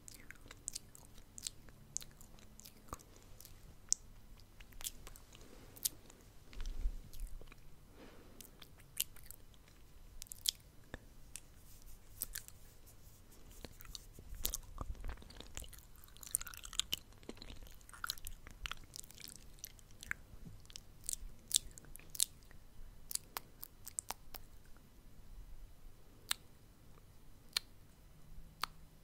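Close-miked ASMR mouth sounds: irregular wet clicks, smacks and pops of lips and tongue, coming every fraction of a second.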